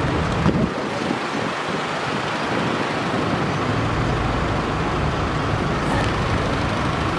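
Singer DLS Porsche 911's air-cooled flat-six running steadily as the car creeps along at low speed close by, over the rumble of surrounding traffic.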